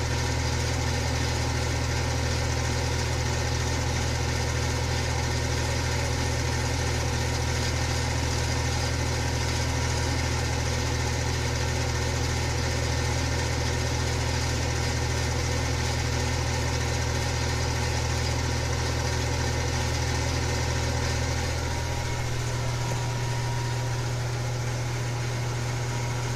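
Electric fan running steadily: a strong low motor hum under an even rush of air from the blades. Near the end the low hum shifts in pitch and balance.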